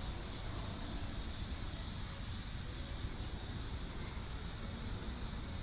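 Steady, continuous chorus of crickets trilling in a high band, over a low rumble.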